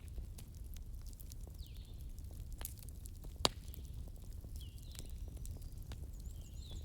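Wood bonfire crackling over a low steady rumble, with scattered snaps and one sharp pop about three and a half seconds in. A bird chirps several times, with a quick run of high chirps near the end.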